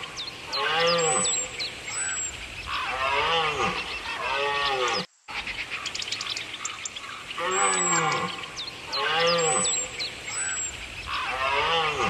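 An animal's drawn-out calls, about seven in a row, each rising then falling in pitch and lasting about a second. There is a short dropout about five seconds in, after which the same run of calls repeats.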